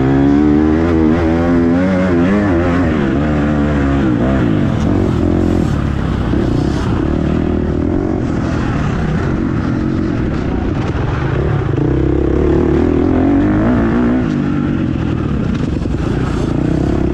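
Motocross bike engine revving hard and backing off as the rider works the throttle and gears, its pitch climbing and dropping again and again, heard from the rider's helmet camera.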